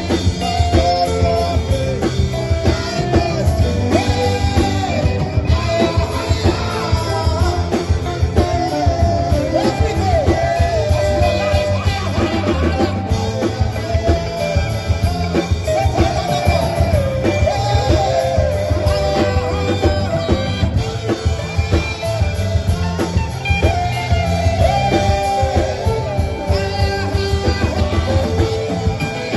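Upbeat praise music: a voice singing over guitar and a steady beat.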